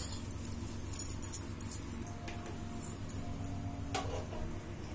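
Light metallic clinks of steel kitchen utensils being handled, a quick run of them about a second in and a couple more near the end, over a steady low hum.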